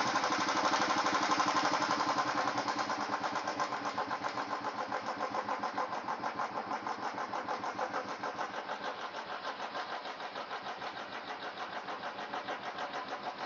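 Royal Enfield single-cylinder four-stroke engine idling with an even beat, its idle speed being turned down at the carburettor after the mixture has been tuned, so it gets gradually quieter.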